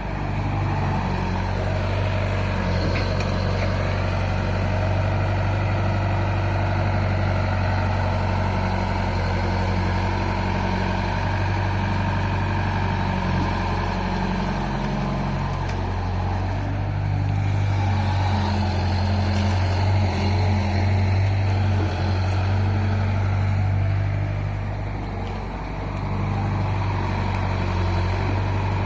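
Excavator's diesel engine running steadily, with a brief drop in level about halfway through and again near the end.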